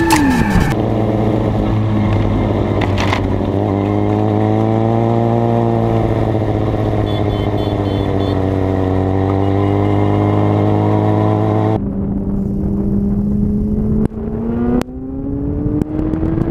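Sport motorcycle engine heard from on board, running at a near-steady speed with slight rises and falls in pitch. After a few abrupt cuts, it revs up with a steadily rising pitch near the end.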